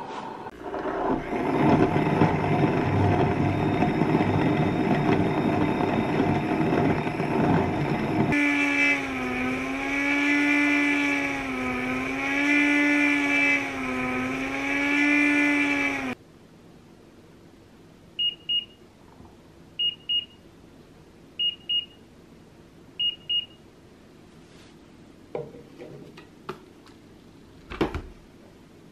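Joyoung soy milk maker's motor grinding black soybeans: a loud rough grinding noise, then from about eight seconds in a strong whine that wavers slowly up and down in pitch, cutting off suddenly about halfway through. After a short pause the machine gives four high double beeps, its end-of-cycle signal, and a few plastic clicks follow near the end as the lid is handled.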